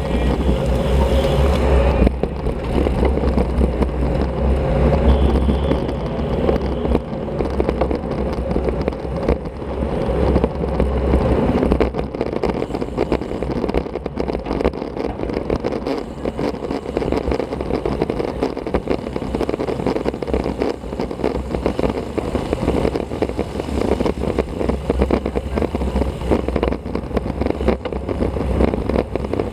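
Wind buffeting and road rumble on a bicycle-mounted action camera's microphone while riding a road bike: a steady, heavy low rumble with crackle.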